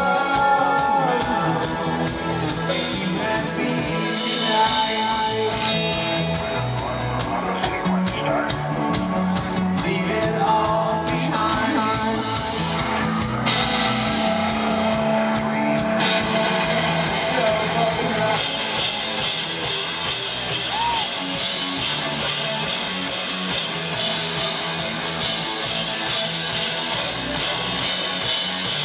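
Rock band playing live, with guitars, drum kit and singing; the sound turns fuller and denser a little past halfway.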